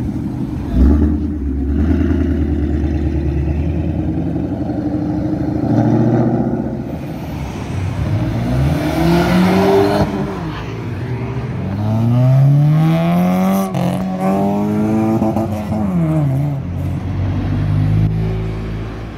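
Modified cars driving off one after another, engines accelerating with the note rising in pitch. The loudest car comes past about twelve to fifteen seconds in, its engine note rising and then falling away.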